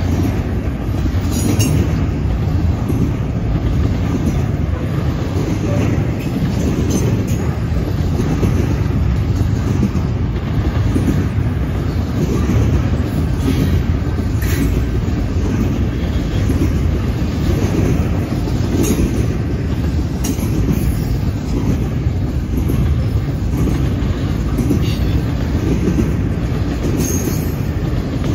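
Double-stack intermodal container cars of a freight train rolling past on the rails: a steady, loud rumble of steel wheels on track, with occasional faint clicks.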